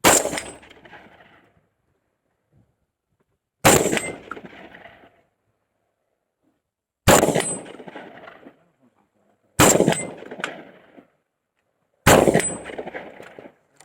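Typhoon F12 semi-automatic 12-gauge shotgun fired five times in slow aimed fire, the shots about two and a half to three and a half seconds apart. Each loud report trails off over a second or so.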